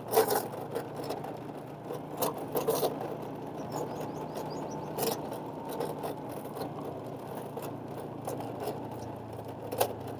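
A small vehicle engine running at a steady speed while travelling, with scattered clicks and knocks over the hum, the loudest just after the start and about five seconds in.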